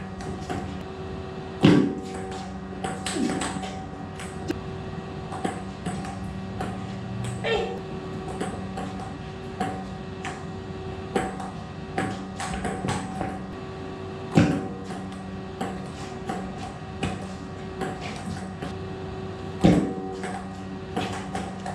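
Table tennis being played: a celluloid ball clicks off the paddles and the table in quick rallies, with a few much louder sounds standing out. A steady hum runs underneath.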